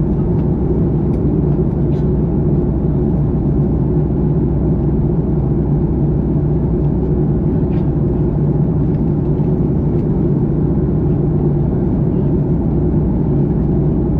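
Steady low drone inside the cabin of a jet airliner in flight: engine and airflow noise.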